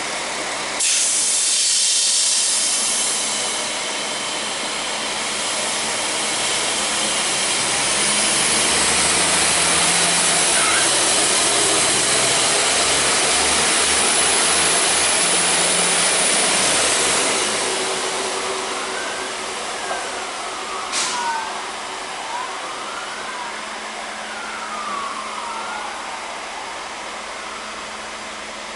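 Diesel multiple unit departing: loud, steady, hiss-like engine and running noise sets in abruptly about a second in, with a deeper rumble as the train passes close, then fades as it draws away. Near the end, thin squeals rise and fall repeatedly.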